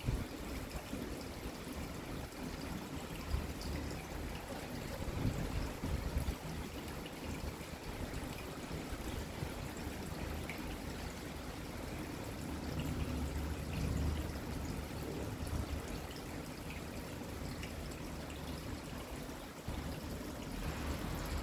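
Steady rain falling, with water trickling and pouring. A low rumble swells slightly about two-thirds of the way through.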